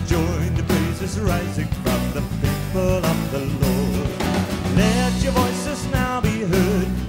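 Contemporary praise-and-worship song playing from an album recording: a full band with steady bass and a melodic lead line that wavers in pitch above it.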